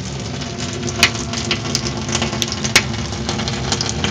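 Tap water pouring into a bathtub and running down its drain, a steady rushing with a few sharp clicks. This is the test run of the bath drain after its blockage was cleared and a new gasket fitted, with the water draining freely.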